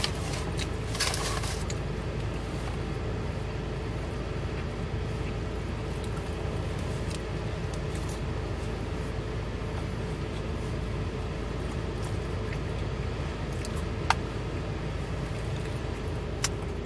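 A steady low hum inside a car, typical of the engine idling, with quiet chewing and a few sharp clicks of a utensil against a food bowl.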